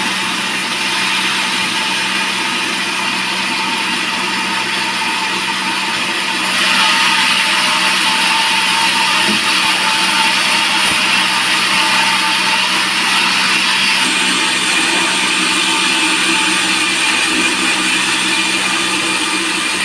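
Band sawmill cutting through a teak log: a loud, steady, high-pitched whine and rush of the blade in the wood, getting louder about six seconds in.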